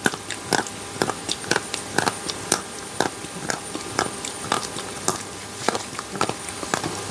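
Close-miked chewing of chocolate, a short sharp click about twice a second.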